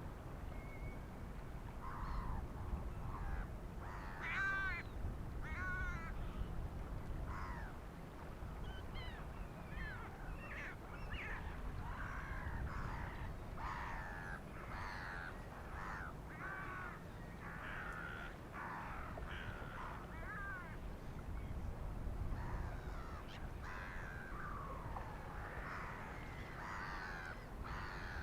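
A flock of black-headed gulls and hooded crows calling, harsh calls sparse at first and then overlapping almost continuously, over a steady low rumble.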